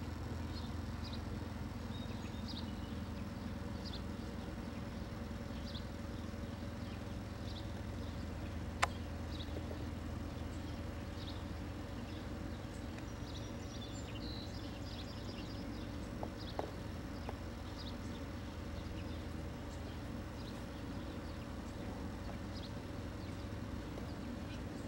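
Faint scattered bird chirps over a steady low outdoor hum, with one sharp click about nine seconds in.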